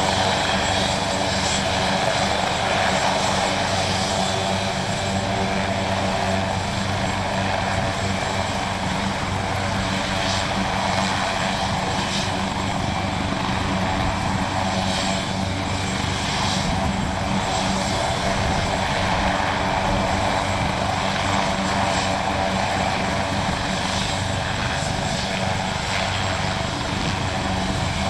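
Maryland State Police AgustaWestland AW139 helicopter running on the ground with its main rotor turning: a steady turbine whine over continuous rotor and engine noise.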